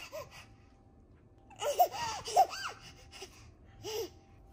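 An eight-month-old baby laughing in short squealing bursts: a brief one at the start, a run of giggles about two seconds in, and one more short laugh near the end.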